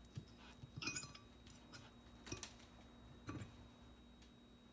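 Metal fork cutting through a pizza and knocking against a ceramic plate: four faint clinks, the loudest about a second in.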